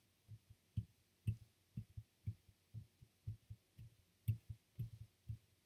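Soft, low thumps, roughly two a second and not quite even, with no speech.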